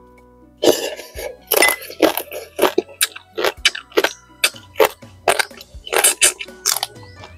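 Close-up mouth noises of eating: a run of short, sharp chewing and smacking sounds, roughly two a second, starting under a second in, over soft background music.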